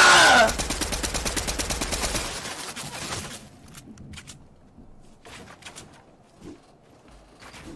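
A loud, drawn-out 'AUGHH' yell cuts off about half a second in. A rapid, even rattle of sharp cracks, like machine-gun fire, follows at about ten a second and dies away after about two more seconds, leaving scattered faint clicks and pops.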